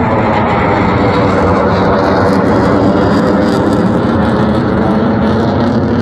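Loud, steady roar of a fighter jet's engines as it flies past overhead.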